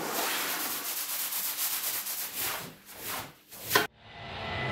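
A wet rug being scrubbed, sped up: a dense rasping hiss of quick strokes that cuts off abruptly after one sharp loud hit just before four seconds in. A low rumbling swell starts near the end.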